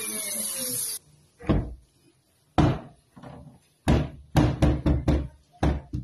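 A corded power drill whining and falling in pitch, cutting off about a second in, then a run of about nine sharp wooden knocks and thuds, the later ones coming quickly, about four a second.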